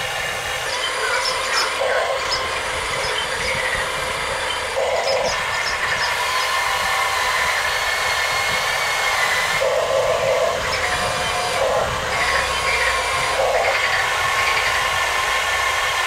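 Electric motors and plastic-and-metal gearboxes of a radio-controlled Huina excavator whining as it works its boom, bucket and tracks in mud, with short louder bursts every few seconds as a motor is driven harder.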